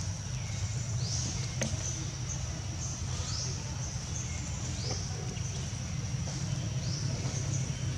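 Outdoor ambience: a steady high-pitched hum with short rising squeaks or chirps about once a second, over a constant low rumble. A single sharp click sounds about a second and a half in.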